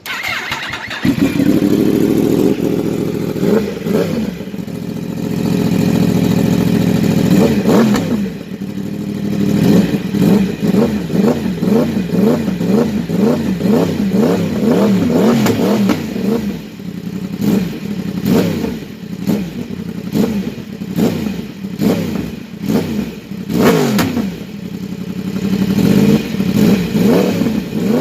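Yamaha YZF-R1's inline-four engine comes in loud and runs at a steady note for several seconds. It is then revved again and again, the pitch swinging up and down in quick throttle blips.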